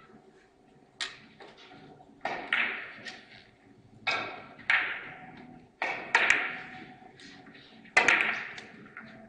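Sharp clicks of carom billiard balls, about seven spaced irregularly a second or so apart, each ringing out in a large hall.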